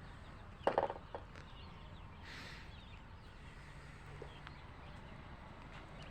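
A chicken gives a short loud cluck under a second in, with a smaller one just after, over faint small-bird chirping.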